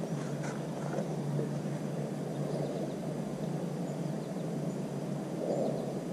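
Steady low rumble of outdoor background noise, with a few faint, short bird chirps.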